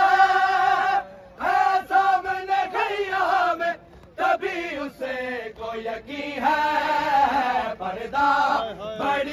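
Men chanting an Urdu nauha, a Muharram lament, in long sung phrases with short breaks between them.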